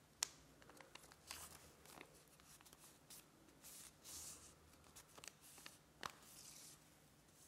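Faint rustling and crinkling of a square of origami paper as it is folded and creased by hand, with a few sharp crisp clicks, the sharpest just after the start and another about six seconds in.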